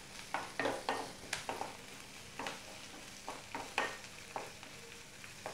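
Spatula scraping and knocking irregularly against a metal kadai while stirring diced onions and curry leaves, over a light sizzle of frying in coconut oil: the onions being sautéed until soft.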